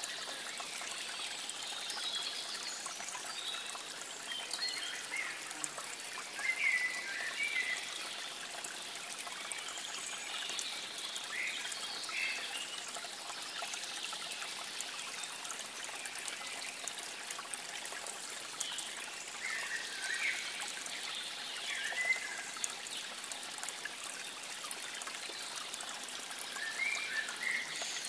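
Water trickling steadily, with short chirping calls scattered through it now and then.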